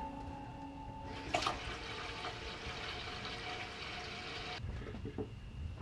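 Water from a kitchen faucet running into a stainless steel pot in the sink. It starts with a knock about a second and a half in and cuts off abruptly about three seconds later.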